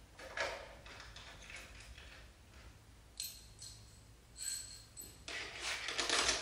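Steel bolts and nuts being worked through a propeller hub and face plate: small metal knocks, then two sharp metallic clinks that ring on briefly, about three and four and a half seconds in, followed by a run of rattling and scraping near the end.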